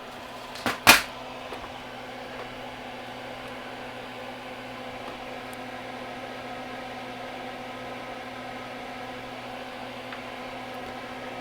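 A steady electric hum of a small fan or motor running, with two sharp clicks just under a second in, the second one loud.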